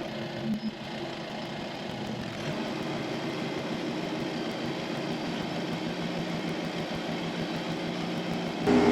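Tractor engine running steadily, growing a little louder a couple of seconds in. Near the end the sound changes abruptly to a louder, steadier hum.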